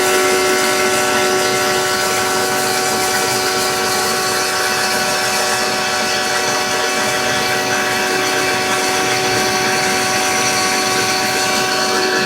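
CNC machine running steadily as it machines a part, its spindle giving a constant whine of several steady tones over a hiss.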